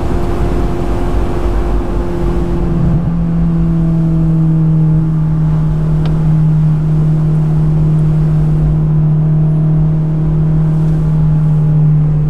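Honda S2000 (AP2) 2.2-litre four-cylinder engine and exhaust running at a steady pitch while driving with the top down. The pitch shifts briefly about three seconds in, then holds steady again.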